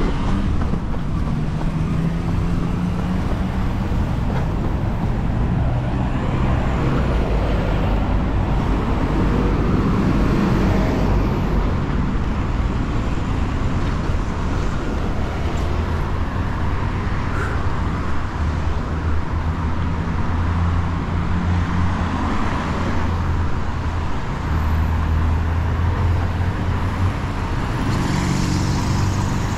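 Road traffic: vehicle engines humming over steady road noise.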